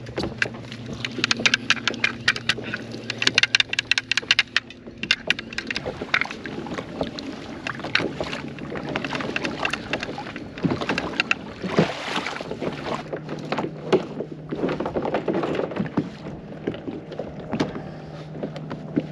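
Anchor-rope reel on a kayak clicking rapidly as it spins and the rope runs, for the first few seconds. After that come scattered knocks and clicks of gear being handled.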